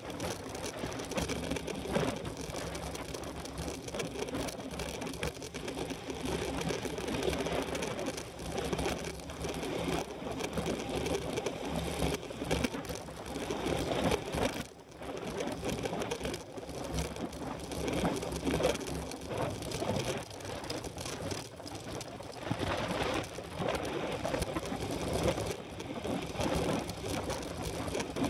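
A small motor running steadily, with a short drop in level about halfway through.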